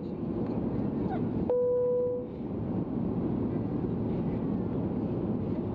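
Boeing 737-300 cabin noise on descent: a steady rush of airflow and engine noise. About a second and a half in, a single steady mid-pitched tone sounds for under a second.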